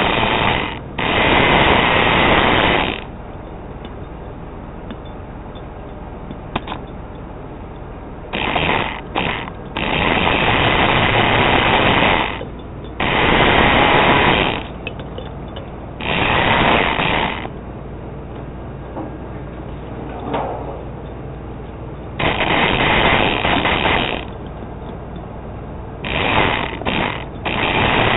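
Toy radio-controlled monster truck's motor and gears whirring in repeated bursts of one to three seconds as it drives in spurts, with a steady low hum between the bursts.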